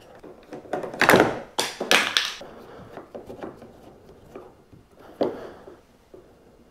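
Knocks and scrapes of a screwdriver, screws and a plastic carry handle being handled against a plastic kayak hull. A cluster of sharp knocks comes from about one to two seconds in, with one more knock near the five-second mark.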